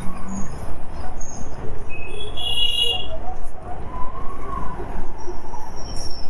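Road traffic heard from a moving motorbike: a steady rumble of engines, tyres and wind on the microphone, with a vehicle horn sounding for about a second, two to three seconds in.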